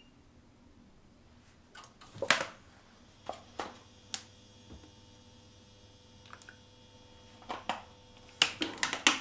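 Sharp clicks and light knocks from handling around an empty stainless-steel pot on a glass cooktop as oil goes in. The loudest knock comes about two seconds in and a quick run of clicks comes near the end. A faint steady hum sets in after the hob has been switched on.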